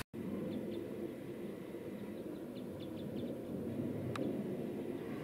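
Footsteps and rustling through low shrubs and rocks while walking, with a few faint high chirps in the first few seconds and a single sharp click about four seconds in.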